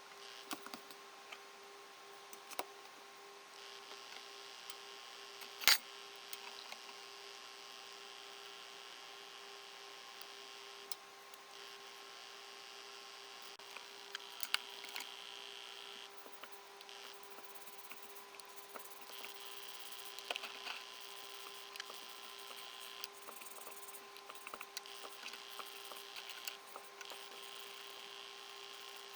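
A steady electric hum, with stretches of hiss that start and stop and scattered light clicks and knocks of engine parts being handled while they are cleaned; one sharp click about six seconds in.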